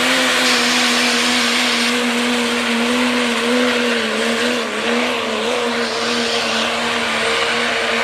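A 4x4 pulling truck's engine held at high revs under full load as it drags the weight sled, loud and steady in pitch over a heavy rushing exhaust noise, with a few small dips in pitch around the middle.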